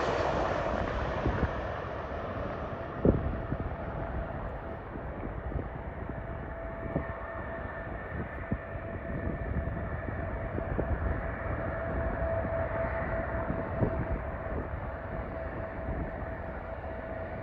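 Jet airliner engines: the loud rumble and hiss fade over the first couple of seconds as the aircraft draws away, then the engines run on with a steady rumble and a steady whine. A few sharp knocks stand out, the loudest about three seconds in.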